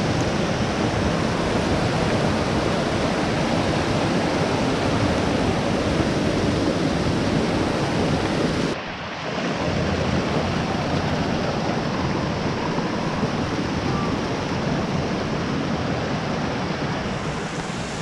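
Rushing white water of a rocky mountain stream cascading over boulders: a loud, steady roar, broken briefly about halfway through.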